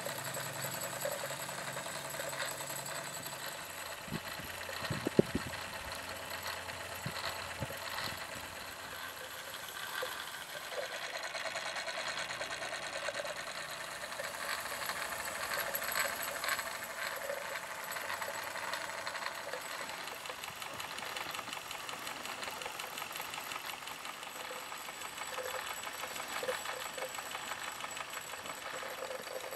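Wilesco D40 toy steam tractor's small steam engine running fast, a quick rapid chuffing and light mechanical clatter. A sharp click sounds about five seconds in.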